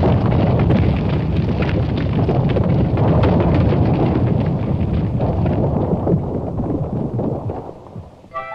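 Cartoon sound effect of an eruption reshaping the land: a continuous heavy rumble with scattered crackles, fading away near the end.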